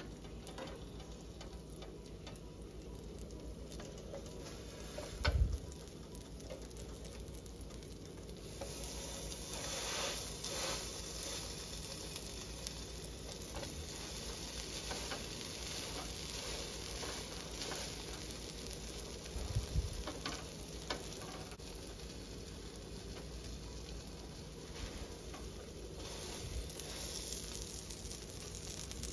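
Bread rolls, spread side down, sizzling softly as they toast on a hot griddle pan; the sizzle grows louder about a third of the way in as more rolls go on. Two dull knocks stand out, one early and one past the middle.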